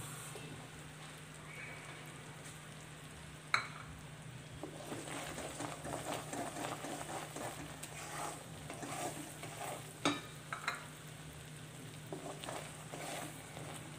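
Jaggery syrup with ghee bubbling and sizzling in a kadhai, foaming up as it nears the setting stage, while a spatula stirs and scrapes it around the pan. Two sharp clacks of the spatula against the pan, the first about three and a half seconds in and the second about ten seconds in.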